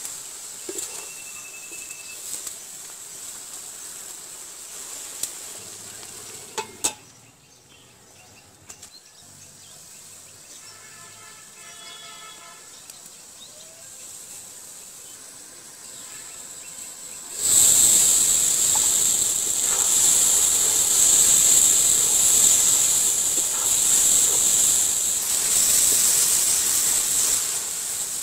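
Bottle gourd and fish curry sizzling in a karahi, with a spatula stirring. It is quieter in the middle, then about two-thirds of the way through a loud, steady sizzle sets in suddenly.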